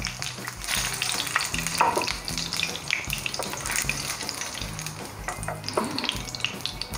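Hot cooking oil sizzling and crackling in a frying pan where small brinjals are being shallow-fried, with many small pops.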